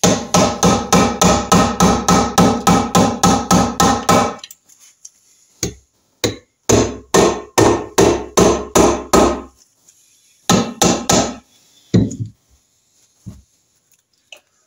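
Copper-faced hammer rapidly striking the aluminium crankcase of a Norton Commando engine to drive the case halves apart. The blows come in runs of about four a second with a slight metallic ring, stop twice, and end in a few single blows.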